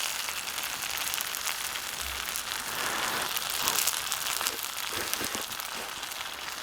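Food sizzling in an iron wok over a campfire: a steady hiss laced with fine crackles.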